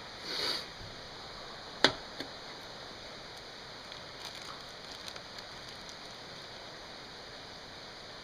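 Parts and tools being handled: a brief rustle, then a sharp knock about two seconds in, a lighter knock just after, and a few faint ticks, over a steady hiss.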